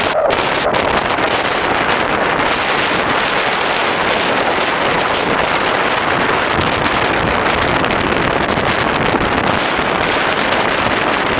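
Strong tropical-storm wind buffeting the microphone: a loud, steady rushing noise that does not let up.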